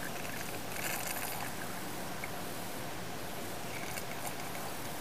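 Steady background hiss, with a few faint, brief rustling and splashing noises about a second in and again around four seconds in, as a plastic wash bottle is handled and squirted over a filter funnel.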